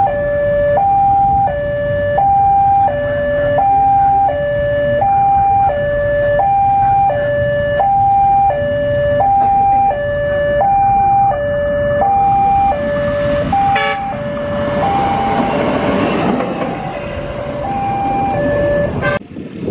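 Two-tone electronic warning alarm of a railway level crossing, switching steadily between a high and a low tone about every 0.7 seconds. In the last few seconds a rushing noise from the passing train swells over it.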